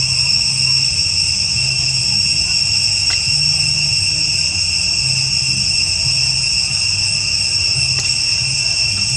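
Steady high-pitched insect chorus, continuous and unchanging, with faint clicks about three and eight seconds in.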